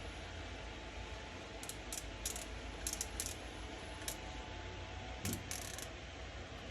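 A scattered series of about nine light clicks and clinks from small hard objects being handled, starting a little over a second in and stopping near the end, over a steady low hum.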